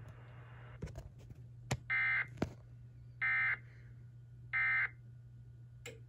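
Emergency Alert System end-of-message data tones from a TFT EAS 911 decoder's speaker: three short, identical bursts of warbling digital tone (the 'NNNN' EOM code) about a second and a quarter apart, signalling that the relayed alert has ended. A few light clicks fall between them over a low steady hum.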